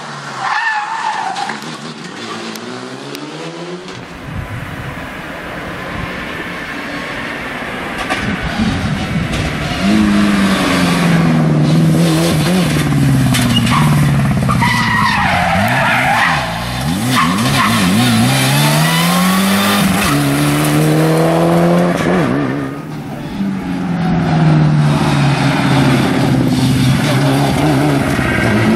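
Mitsubishi Lancer Evolution rally cars' engines revving hard as they pass at speed, the pitch climbing and dropping again and again through gear changes, with some tyre squeal.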